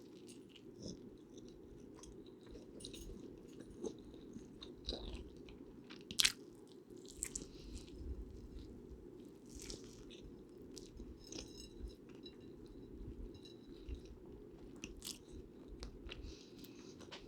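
A person chewing and biting food close to the microphone, with scattered small clicks and one sharper click about six seconds in. A steady low hiss runs underneath.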